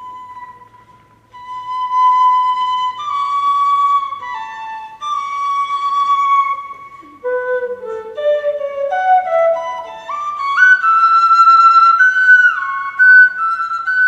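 Solo flute playing a slow melody of held notes, one note at a time, climbing step by step in the second half.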